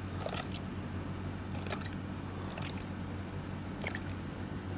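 A steady low hum with a few faint, soft taps as a pastry brush dabs syrup onto sponge cake.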